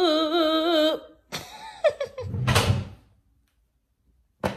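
A woman's sung note, held with a wide vibrato, cuts off about a second in. A few short, jumbled sounds follow, then a single sharp click near the end.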